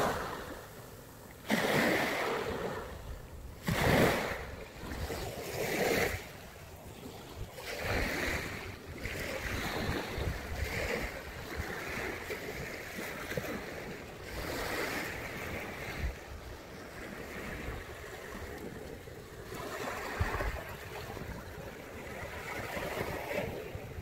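Sea waves washing onto a beach, swelling and falling back every two to four seconds, the strongest surges in the first few seconds. Wind rumbles on the microphone underneath.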